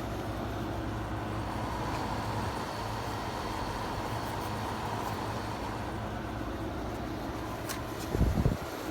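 Late-80s Kenmore (Whirlpool) 5,000 BTU window air conditioner running steadily, its fan blowing and its Matsushita rotary compressor on, really quiet. Near the end there is a sharp click followed by a brief low thumping.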